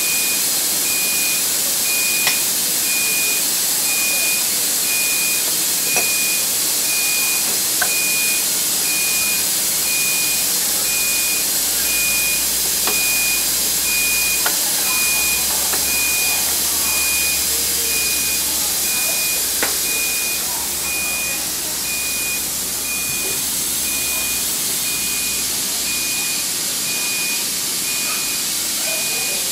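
Steady hiss and a thin high whine from a stationary locomotive's running equipment, with a few sharp metallic clicks as the brake-hose couplings between locomotive and coach are handled. A low hum comes in about ten seconds in and fades out a few seconds before the end.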